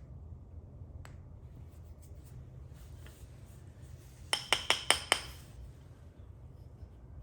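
Five quick, sharp metallic clinks with a short ringing tone, in about a second, from small metal carburetor parts or a hand tool knocking together on the bench; a single faint tick comes earlier, over a steady low hum.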